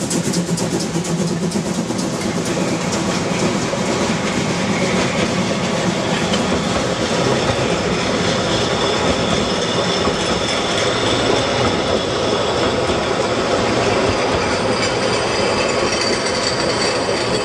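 Narrow-gauge steam train passing close by: steam locomotive 99 1762 goes past, then its wagons and coaches roll by, their wheels clicking over the rail joints. A thin, high wheel squeal rises in the second half.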